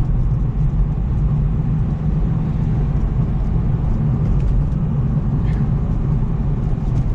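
Steady low rumble of a car's engine and tyres, heard from inside the cabin while it drives slowly on a snow- and ice-covered road.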